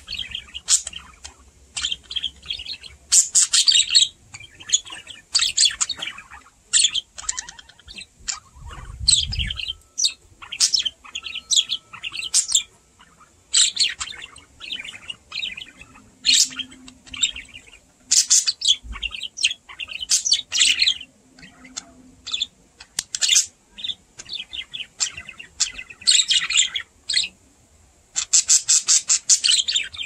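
Budgerigars chirping: a near-continuous stream of short, quick chirps in irregular runs, with brief pauses between runs.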